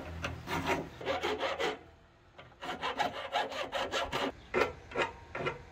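Hand file rasping on the edge of an aluminum hinge plate, in quick back-and-forth strokes at about three a second, with a brief pause near the middle.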